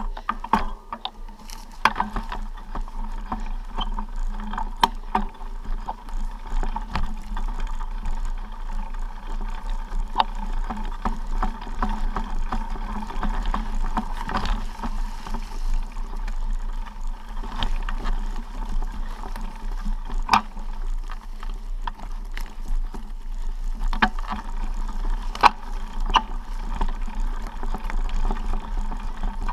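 Hiker's footsteps on a dry-leaf and dirt forest trail over a steady rumble and rustle of wind and handling noise on the moving body-worn camera, with irregular sharp clicks and knocks scattered throughout.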